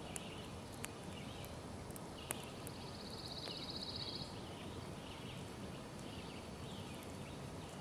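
Faint outdoor ambience with scattered light snaps and crackles from a small twig campfire and sticks being broken by hand, and a short, rapid, high-pitched animal trill from about three seconds in to just past four.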